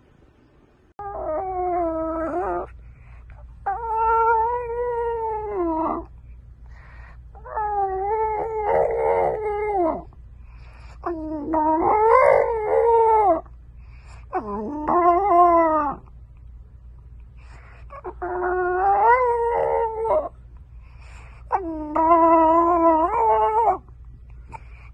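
French bulldog howling in a string of about seven drawn-out, wavering calls, each a second and a half to two seconds long, with short pauses between.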